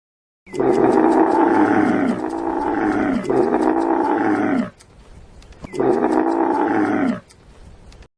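Camel sound effect: loud, low calls, three long ones back to back, then after a short pause one more, each dropping in pitch at its end.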